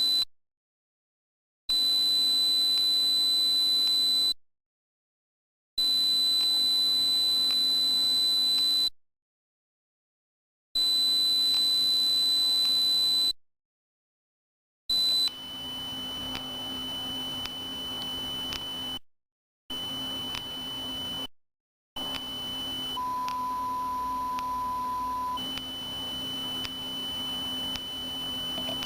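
Electronic pure tones of the kind used to mask tinnitus: a high, steady whistle-like tone in bursts of about two and a half seconds with silent gaps, four times. About halfway through, a somewhat lower, quieter high tone takes over above a low hum. It switches to a lower mid-pitched tone for a couple of seconds and then comes back.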